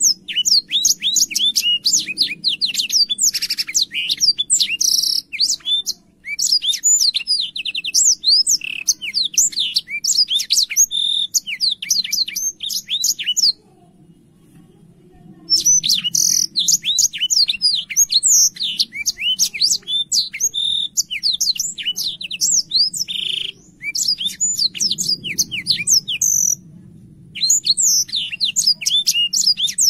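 Black-throated canary (blackthroat) in full song: a long, fast run of high chirps and trills. The song breaks off for about two seconds about halfway through, and briefly again near the end.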